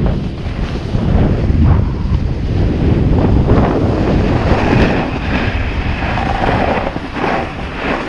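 Wind buffeting a GoPro Hero7 Black's microphone while snowboarding downhill, with the board hissing and scraping over groomed corduroy snow. The noise swells and eases but never stops.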